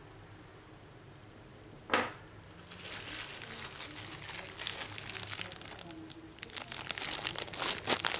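One sharp knock about two seconds in, then a clear plastic bag of small metal mounting parts crinkling as it is handled, loudest near the end.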